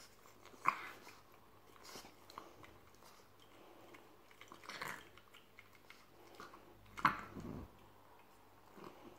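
Boston terrier mouthing and biting at a plastic fidget spinner: sharp clicks of teeth on plastic, the two loudest about a second in and about seven seconds in, with softer nibbling clicks between.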